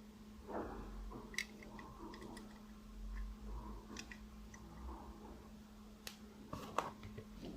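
Small scale-model parts being handled and pushed into their mounting holes: light rustling and scraping with a few sharp little clicks, one about a second and a half in, one about four seconds in and two near the end.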